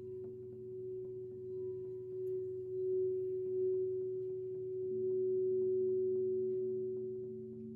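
Singing bowl sounding a long sustained tone that swells and eases in loudness. A second, lower tone grows stronger about five seconds in.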